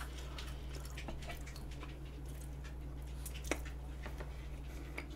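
Quiet eating sounds: a metal fork cutting into whipped-cream-topped pound cake in a cast-iron skillet, then soft chewing, with faint scattered clicks and one sharper click about three and a half seconds in. A steady low hum lies underneath.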